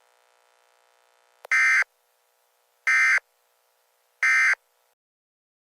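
Emergency Alert System end-of-message data tones: three identical short bursts of buzzy SAME digital code, each about a third of a second long and about a second and a half apart.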